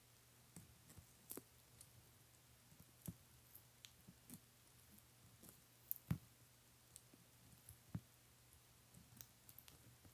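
Two baby Sulcata tortoises biting and tearing crisp leafy greens: faint, irregular little clicks and crunches, the loudest a close pair about six seconds in, over a low steady hum.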